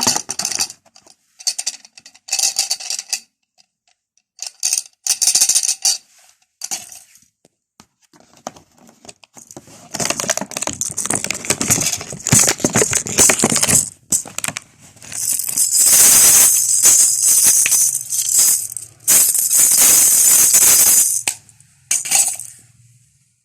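Small hard objects rattling and clattering in repeated bursts: short shakes in the first half, then denser clatter and two long, loud shaking spells in the second half.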